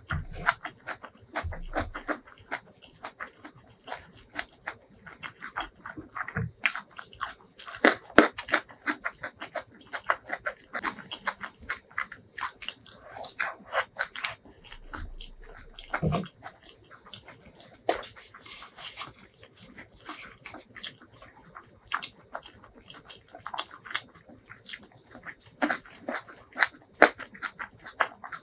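Close-miked ASMR eating sounds: a mouthful of curry-soaked rice, eaten by hand, being chewed wetly, with lip smacks and many sharp, irregular mouth clicks.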